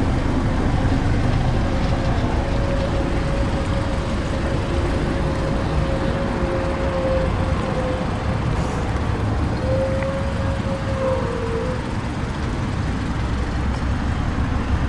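A 2015 Mazda 6 idling, heard at its exhaust tailpipe as a steady low rumble.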